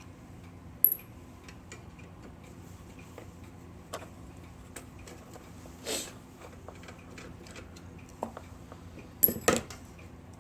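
Small metal clicks and clinks of a vintage Smith Corona typewriter being taken apart by hand, parts and tools tapping on its metal frame. A sharp click comes about a second in and a quick cluster of clinks near the end, over a low steady hum.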